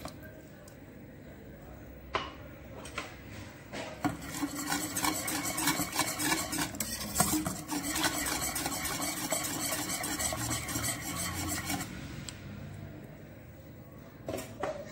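A spoon stirring harira soup in a pot, scraping quickly and repeatedly against the pot, starting about four seconds in and dying away shortly before the end, after a few light knocks.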